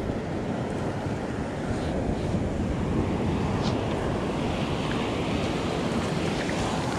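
Ocean surf washing up and over the sand in a steady rush, with wind buffeting the microphone.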